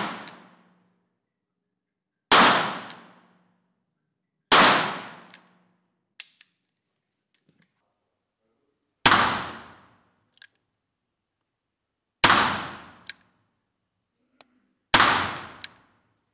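Smith & Wesson 617 .22 LR revolver firing five single shots at uneven intervals of two to four seconds, each a sharp crack with a short decaying tail. Faint small clicks come between some of the shots.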